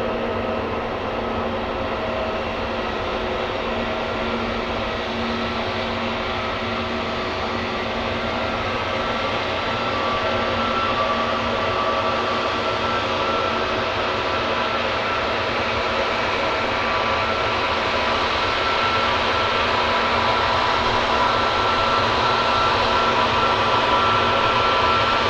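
Airbus A320neo's Pratt & Whitney PW1100G geared-turbofan engines running, a steady rushing hum with several whining tones, growing gradually louder.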